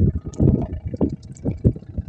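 Sea water lapping and splashing irregularly against a small outrigger boat's hull and around a man standing in the water, a few low splashes a second.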